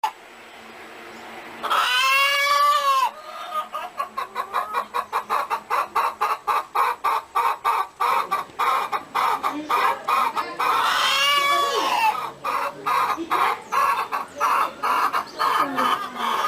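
Chickens: a rooster crows twice, about two seconds in and again about eleven seconds in. Between and around the crows, hens cluck rapidly and steadily, about four clucks a second.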